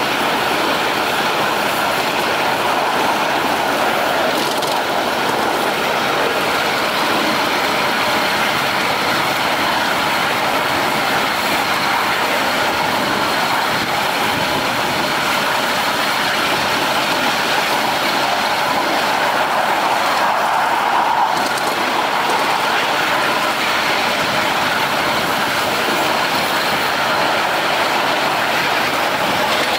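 Ride-on miniature railway train rolling along its track: a steady rumble and rattle of the cars' wheels on the rails, swelling a little about two-thirds of the way through.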